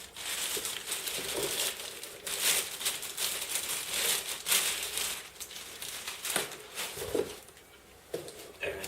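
Packaging crinkling and rustling in irregular bursts as it is handled, easing off briefly near the end.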